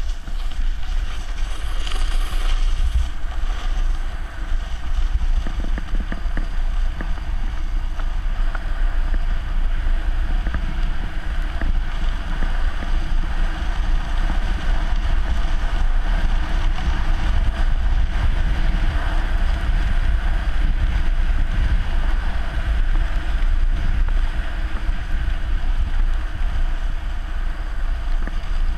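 Wind rushing over a pole-mounted GoPro Hero 3's microphone during a descent on a ski run, a steady low rumble mixed with the hiss of sliding over packed snow.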